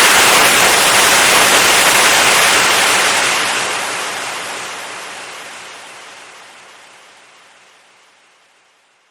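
Compressed air escaping in a loud, steady hiss that fades away gradually from about three seconds in until it dies out near the end.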